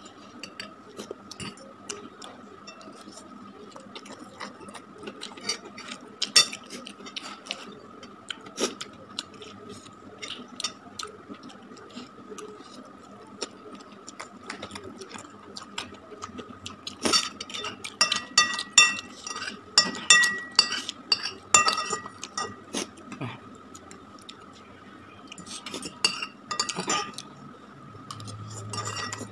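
Metal fork clinking and scraping on a plate while fried noodles are eaten, with slurping and chewing of the noodles. The clinks come thicker in two runs, a little past halfway and near the end, over a faint steady high tone.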